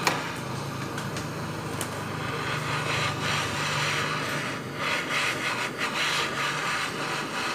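Handheld butane gas torch burning with a steady hiss as its flame heats a steel motorcycle exhaust header pipe to soften it for bending, with a few light handling knocks on the pipe partway through.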